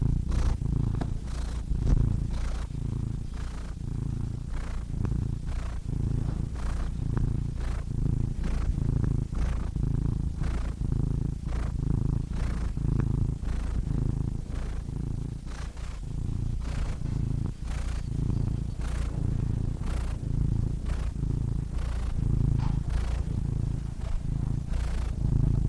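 Domestic cat purring steadily and close up, a low rumble that swells and eases with each breath in and out, about two pulses a second.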